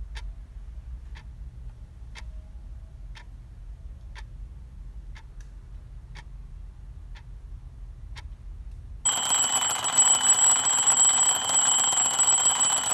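A clock ticking about once a second over a low hum. About nine seconds in, an alarm clock starts ringing loudly and keeps on ringing.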